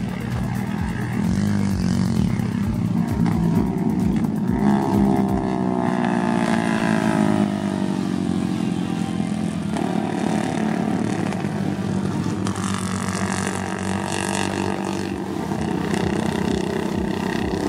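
Racing motorcycle engines running at speed, with one bike passing about five seconds in, its pitch falling as it goes by.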